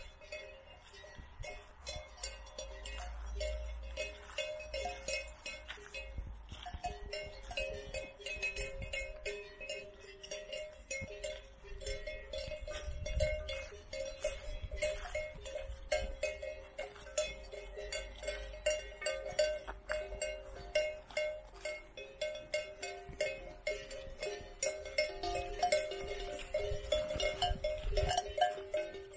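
Bells on grazing cows clanking irregularly and continuously, their tones ringing on after each knock as the cows move their heads while feeding.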